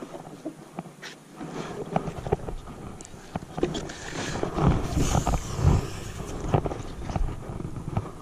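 Wind rumble and handling noise on a body-worn camera, with irregular knocks and scrapes as a bent fishing rod is braced and worked against a boat's rubber gunwale during a fight with a fish; loudest about four to six seconds in.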